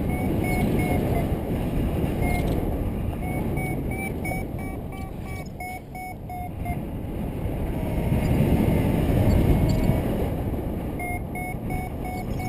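Strong wind rushing over the microphone in flight, with a paragliding variometer beeping in quick short pulses, about three or four a second, in several runs with pauses between.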